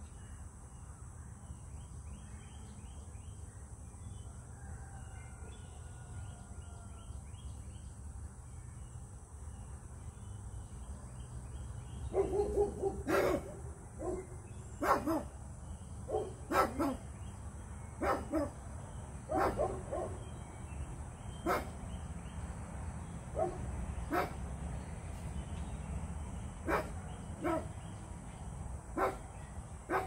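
A dog barking over and over, about one bark every second or so, starting about twelve seconds in. Before that there are only faint bird chirps over a steady low rumble.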